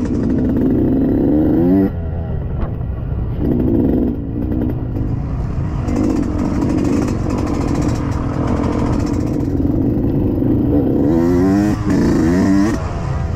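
Yamaha YZ125X two-stroke dirt bike engine under the rider, on and off the throttle. The revs climb sharply just before two seconds in and then drop, and climb in several quick runs near the end.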